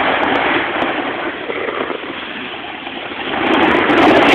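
Steady rushing noise of a snowboard run, swelling louder about three and a half seconds in.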